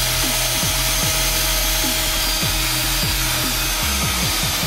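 Music with deep bass notes that drop in pitch on each beat, over the steady whir of an 18-volt cordless drill boring into the car's rear diffuser.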